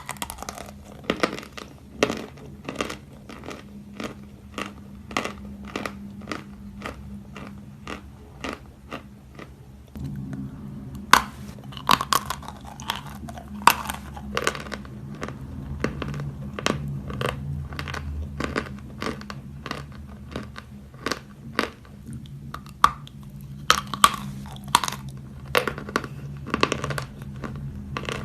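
Close-miked biting and chewing of soft natural chalk (Belaya Gora): a run of crisp crunches, about two or three a second, over a faint steady hum.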